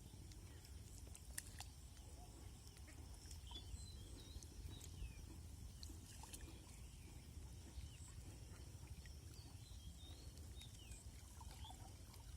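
Near silence: faint outdoor ambience, a steady low rumble with scattered faint high chirps and clicks.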